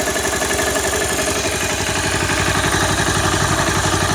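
Honda CBR250R single-cylinder engine idling with a fast, even beat and a mechanical clatter. The owner puts the clatter down to a slack cam chain tensioner letting the cam chain slap.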